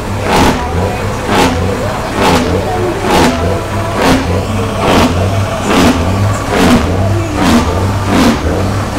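Car engine being revved in short repeated blips, about one a second, each a sharp surge over a steady low idle.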